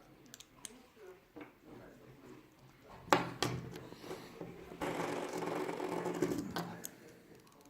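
Fidget spinner handled and flicked into a spin: small clicks, a sharp click about three seconds in, then the spinner's bearing whirring steadily for nearly two seconds before it dies away.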